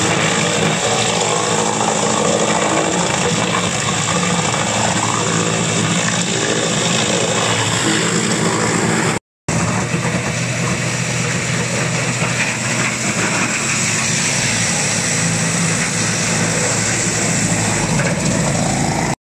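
Electric-motor, belt-driven wood crusher running as branches are fed in and shredded: a loud, dense, steady din with a low hum underneath. The sound drops out for a split second about halfway.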